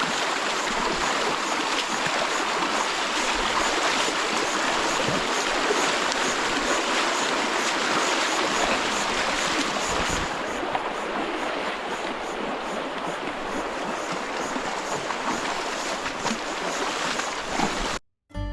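River water rushing over rocks in a steady, even flow. It turns duller about ten seconds in and cuts out briefly near the end.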